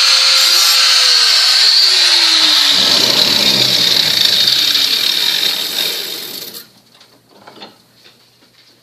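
Angle grinder grinding the steel edge of a lawn mower blade, putting a light bevel on the back side. Its motor tone drops in pitch a second or two in. The grinding stops abruptly about two-thirds of the way through, leaving a few faint clicks.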